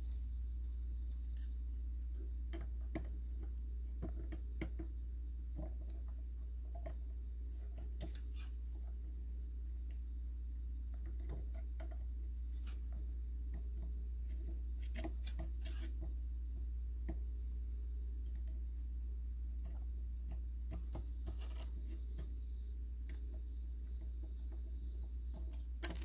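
Steady low hum under faint, scattered small clicks and taps of hand work while soldering component pins on a circuit board, with one sharp click near the end.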